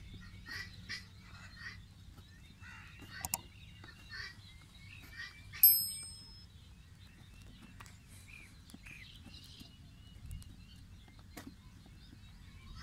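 Subscribe-button sound effect: a sharp click, then about two and a half seconds later a bright bell ding that rings out and fades, the loudest sound here. Underneath, birds call faintly and sparsely.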